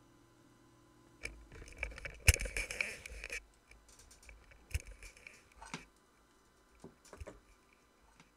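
Close handling noise: rubbing and scraping with clicks and one sharp knock about two seconds in, then a few scattered clicks and taps.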